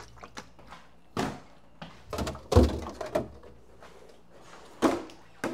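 A few separate thunks and knocks of food containers being handled and set down on refrigerator shelves, the loudest about two and a half seconds in.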